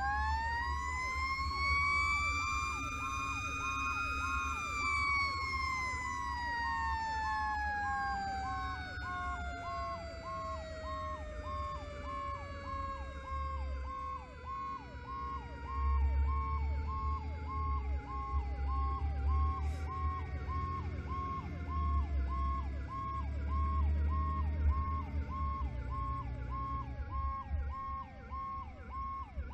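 Fire rescue truck's sirens while it is under way: a siren winds up in pitch over the first few seconds, then slowly winds down through the rest, over a second siren that repeats a short falling tone about twice a second. A low engine and road rumble runs underneath and grows louder from about sixteen seconds in.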